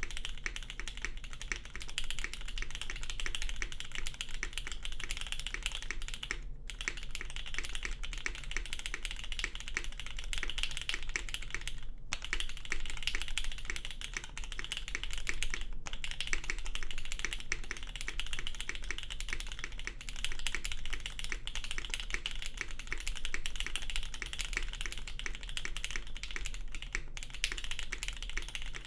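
Fast continuous typing on a custom mechanical keyboard with lubed SP-Star Meteor White linear switches on a polycarbonate plate, dampened with a Seion sheet and a layer of T-shirt under GMK keycaps: a creamy clack, with brief pauses about six, twelve and sixteen seconds in.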